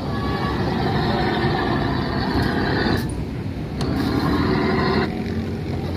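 Battery-powered LED ride-on car rolling over brick paving, a steady rumble and rattle that dips briefly about three seconds in.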